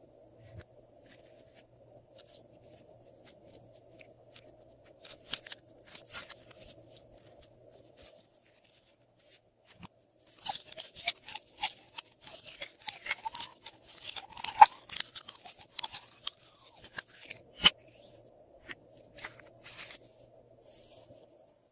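Glossy slime being worked by hand, giving sticky crackling and popping clicks: scattered at first, then a dense run of crackling about halfway through that thins out again near the end.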